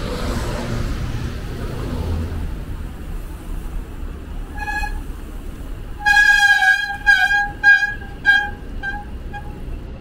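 A horn honking over street traffic: one short toot about four and a half seconds in, a long blast around six seconds, then several short toots that grow fainter.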